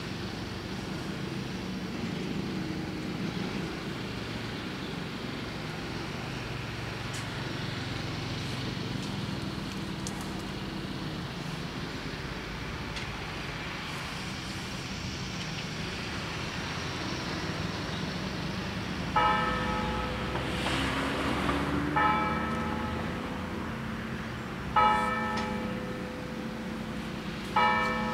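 A steady low rumble, then a bell struck four times at slow, even intervals about three seconds apart, each stroke ringing out and dying away, starting about two-thirds of the way in.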